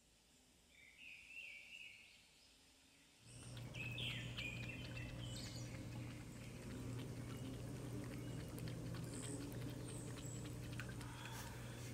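Cats lapping milk from bowls: many soft, quick wet clicks over a steady low hum. A few short high chirps come in the first few seconds.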